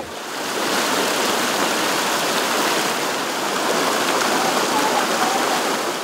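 Shallow river water rushing and splashing over boulders: a steady rush that swells in over the first half second and holds.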